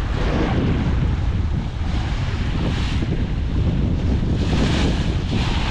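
Strong wind buffeting the microphone over waves rushing and splashing against a small fishing boat at sea, rising in louder surges a few times.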